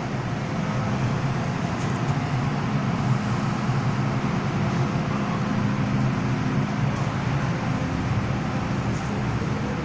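An MTR M-Train metro train starting off and pulling out of an underground station, heard from the platform behind closed screen doors: a steady rumble with a low motor hum as the cars roll past.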